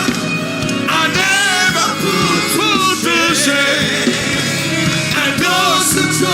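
Live gospel worship music: voices singing over a full band with a steady beat.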